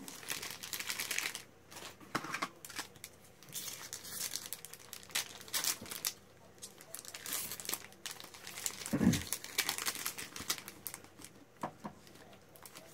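Foil booster-pack wrapper crinkling and tearing in the hands as a pack of trading cards is opened, in irregular bursts, with one dull thump about nine seconds in.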